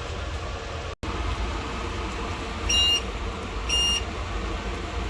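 Two short high electronic beeps about a second apart over a steady low hum; the sound drops out for an instant about a second in.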